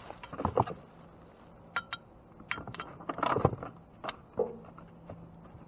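Rummaging through discarded goods in a dumpster: a series of irregular knocks and light clinks as items are shifted and handled, loudest a little after halfway.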